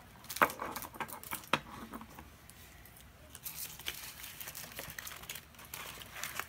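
Small plastic toy packaging being handled: a few sharp plastic clicks and knocks in the first second and a half, then crinkling and rustling of wrappers and boxes.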